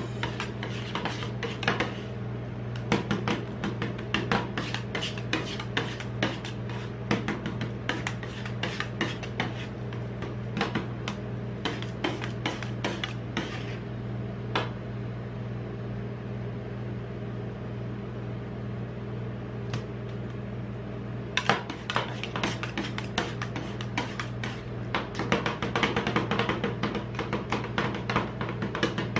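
Two metal spatulas chopping and scraping ice cream on the chilled steel plate of a rolled-ice-cream machine: rapid clattering taps and scrapes of metal on metal that thin out for several seconds in the middle, over a steady low hum.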